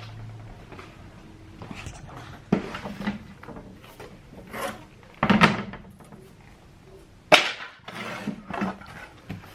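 Irregular knocks, taps and scraping from a door-panel backboard and tools being handled, with one sharp knock about seven seconds in.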